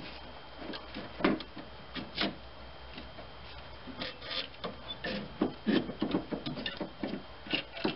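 Irregular plastic clicks, knocks and rubbing as the wiring connector is worked off a GM 3.4L V6's ignition coil pack and the coil pack with its metal bracket is lifted out. The knocks come more often in the second half.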